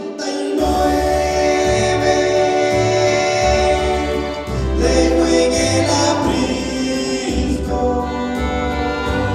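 Gospel music played on an accordion, sustained chords over a steady pulsing bass beat, with singing.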